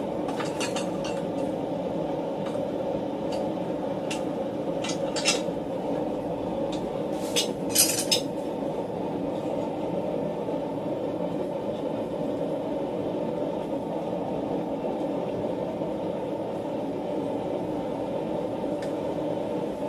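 Steel tools clinking against a steel bench vise as a hot bar is clamped in its jaws: a few separate metallic clinks, the loudest pair about eight seconds in. Under them runs a steady low roar.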